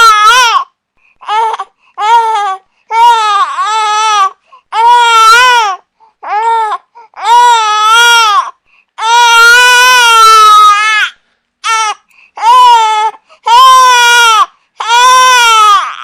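Infant crying loudly in a string of high-pitched wails, some long cries of a second or two and some short ones, with brief silent breaks between them.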